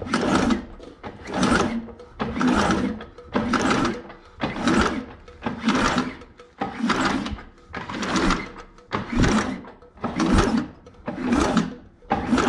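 Henderson inline four-cylinder motorcycle engine being turned over with its spark plugs out for a spark test: a rhythmic mechanical pulse about once a second, a dozen in a row.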